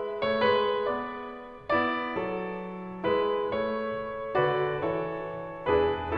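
Background piano music: slow chords struck about every second and a half, each fading before the next.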